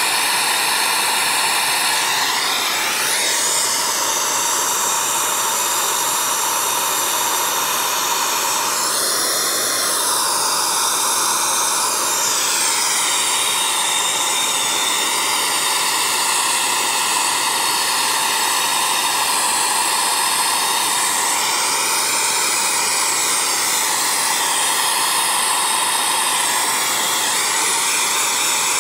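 Hand-held gas torch flame hissing steadily while it heats an aluminum plate for brazing, its tone shifting slowly now and then.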